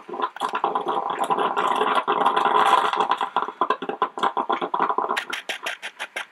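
Melitta Gevalia BCM-4C 4-cup drip coffee maker gurgling and sputtering as it pushes hot water up to the brew basket mid-brew. About five seconds in the gurgle breaks into a quick run of sharp pops.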